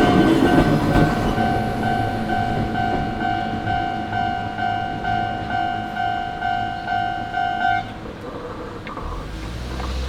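Japanese railway level-crossing warning bell ringing in even pulses about twice a second, while a Hakone Tozan Railway train rumbles past at first and fades. The bell stops about eight seconds in as the crossing clears, and a low rumble rises near the end.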